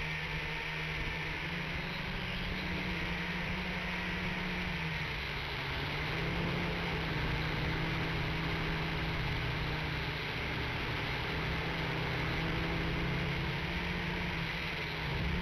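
Small quadcopter's electric motors and propellers heard through its own onboard camera: a steady buzzing hum over a hiss. The pitch dips slightly about five seconds in and rises again near the end as the throttle changes.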